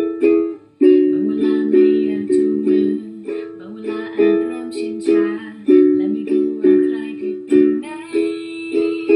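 Ukulele strummed in a steady rhythm of chords, about two to three strums a second, with the chords changing as the song goes. It is played with a makeshift capo, a pencil held on with rubber bands, at the second fret to put the song in a higher key.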